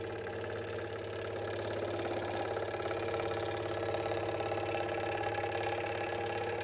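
Hawk G4 precision scroll saw running steadily while its blade cuts through a sheet of plexiglass, the speed turned down for plastic to keep the cut from fusing back together.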